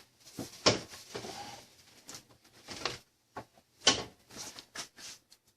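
Light clicks and knocks of engine parts being handled while a new timing chain guide is fitted, about eight in irregular succession, the loudest about four seconds in.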